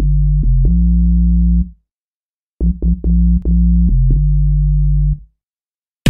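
Synthesizer keyboard music: a phrase of a few quick notes that settles into a held low chord. The phrase plays twice, with about a second of dead silence between.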